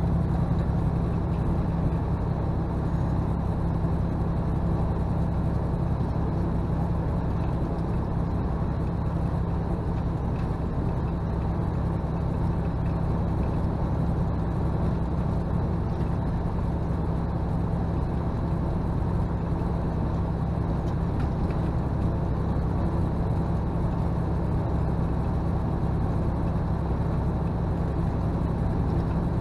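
Semi-truck cruising at highway speed, heard from inside the cab: a steady low drone of diesel engine and road noise that holds even without change.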